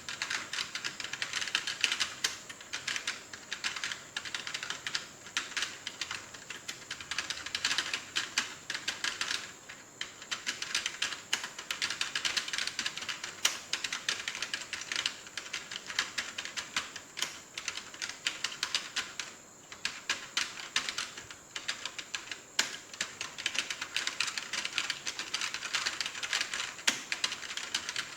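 Fast typing on a computer keyboard: a steady, rapid stream of key clicks, with brief pauses about ten and twenty seconds in.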